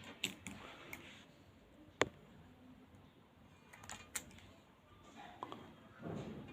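A few small sharp clicks and snips as the excess ends of electrical wire are cut off, with one louder snap about two seconds in.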